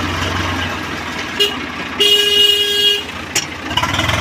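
Mahindra tractor's diesel engine running, with a short horn toot and then a steady horn honk lasting about a second.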